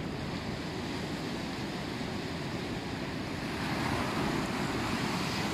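Surf breaking and washing up a beach: a steady rushing wash, swelling a little louder as a wave breaks about four seconds in.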